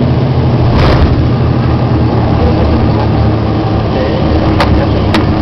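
Embraer EMB 120 Brasilia's twin turboprop engines and propellers droning steadily and loudly, heard inside the passenger cabin. Two sharp clicks sound near the end.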